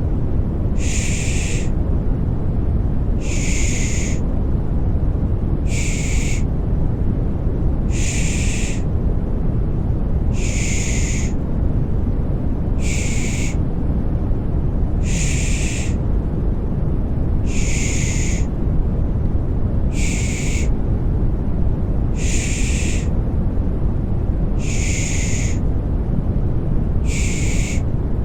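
Rhythmic 'shh' shushing, one short hiss about every two and a half seconds, over a steady low rushing white noise: a lulling 'pış pış' sound for settling a baby to sleep.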